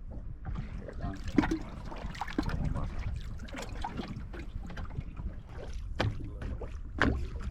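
Knocks and rustling of people moving about and handling gear in a fishing boat, over a steady low rumble.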